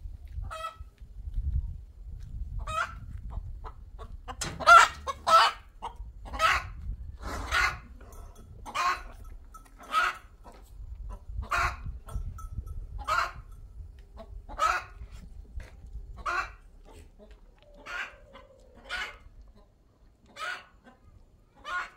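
Domestic fowl calling in a long run of short, sharp calls, about one every second or so, loudest about five seconds in, over a low rumble.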